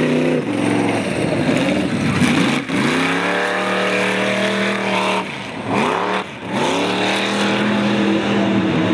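A 4x4 race truck's engine revving hard. The pitch climbs, drops sharply and climbs again several times as the truck drives hard over the dirt track.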